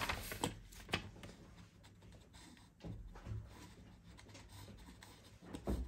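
Pencil scratching on paper in quick, short strokes while sketching tree branches, with a few louder strokes near the start, about three seconds in and near the end.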